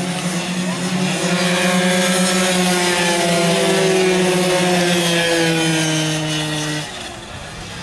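Racing scooter engines held at high revs, a loud, steady, buzzing drone that sags slightly in pitch, then drops away abruptly near the end.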